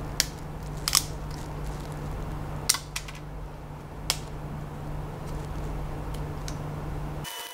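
Flush cutters snipping support structures off a cured UV-resin 3D print: several sharp clicks spaced a second or so apart, over a steady low hum that cuts off just before the end.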